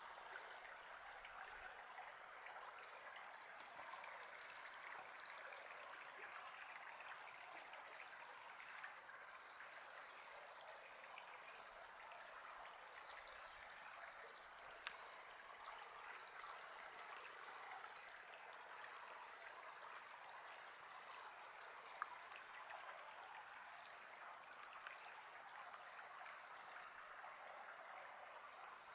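Shallow desert creek trickling steadily over cobbles, faint, with two small clicks about halfway and three-quarters through.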